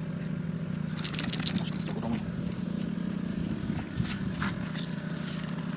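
Steady low hum inside a truck cab, with a few scattered clicks and rustles.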